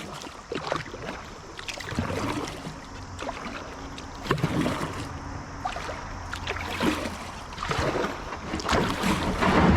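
Kayak paddled through a shallow creek riffle: irregular paddle splashes and knocks over running water, growing louder near the end.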